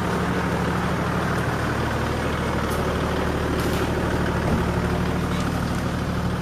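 A vehicle engine running steadily at idle close by, its low hum holding one pitch over a steady rushing noise.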